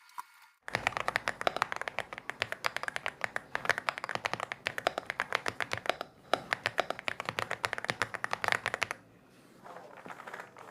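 Rapid typing on a mechanical keyboard, a quick run of key clicks that starts under a second in, breaks briefly about two-thirds through and stops near the end, followed by fainter tapping.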